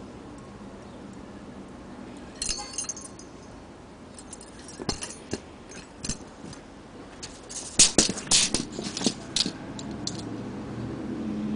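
Metal spurs and their hanging chains clinking and rattling as they are handled, in several short bursts of clinks, the loudest cluster about eight seconds in.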